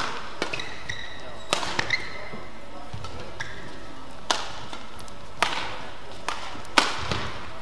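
Men's singles badminton rally: rackets strike the shuttlecock with sharp cracks every one to two seconds, the loudest near the end, and shoes squeak briefly on the court mat between strokes.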